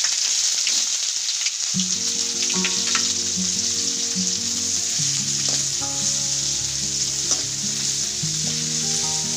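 Sliced onions frying in hot oil in a pan, a loud steady sizzle, with a few light stirring ticks. Soft background music comes in about two seconds in.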